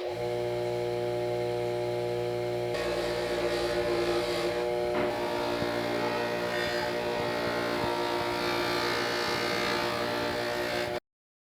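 Small electric motor of a power tool running with a steady hum. Its sound changes about three and five seconds in, then stops abruptly.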